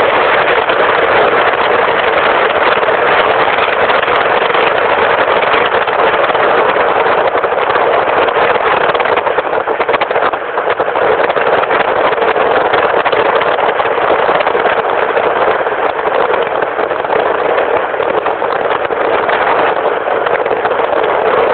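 Strong wind rushing loudly and steadily, a dense even noise with only a slight dip about ten seconds in.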